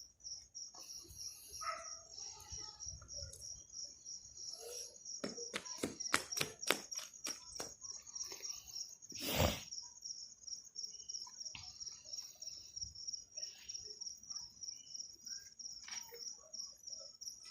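Crickets chirping: a steady, high, fast-pulsing trill. Over it come a quick run of sharp cracks about five to seven seconds in and one louder crack about nine seconds in.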